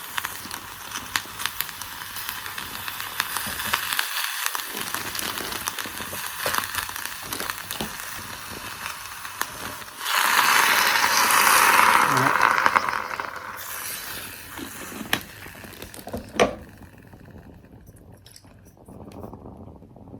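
Kitchen cooking sounds: a crackling hiss with many small clicks, then a louder rushing hiss from about ten seconds in that lasts about three seconds, then quieter sound with a few sharp clicks.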